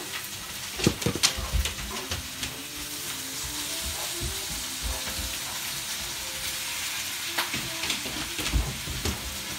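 Great Pyrenees dashing about the room in a bout of zoomies, its paws thudding and scrabbling on the wooden floor in a few quick clusters, about a second in and again near the end, over a steady hiss.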